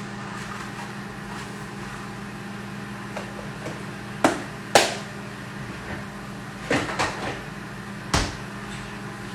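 Kitchenware knocking while chopped herbs go into the bowl: about five short, sharp taps and clacks in the second half, over a steady low hum.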